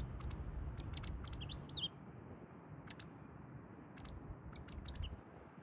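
White wagtail calling: a scatter of short, high chirps, with a quick looping call just under two seconds in, over a low rumble.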